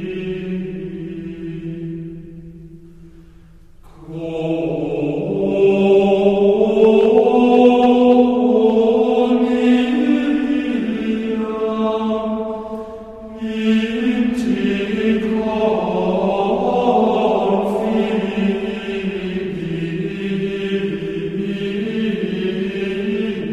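Background music of slow, chant-like voices holding long notes that change pitch slowly. It fades almost away about three seconds in, swells back a second later, and dips briefly again near the middle.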